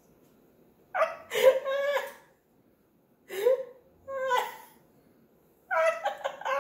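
A person laughing in four short bursts.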